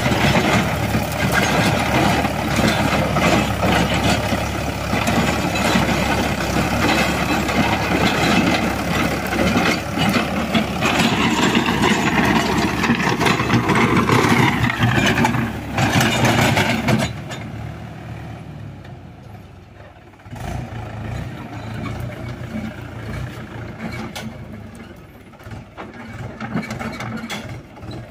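Mahindra 475 DI tractor's diesel engine running under load, driving a Shaktiman rotavator that churns dry soil. About two-thirds of the way in the sound drops suddenly to a quieter level.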